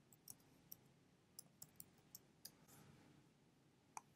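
Faint computer keyboard keystrokes, a run of irregular clicks over the first three seconds, then a single sharper mouse click near the end.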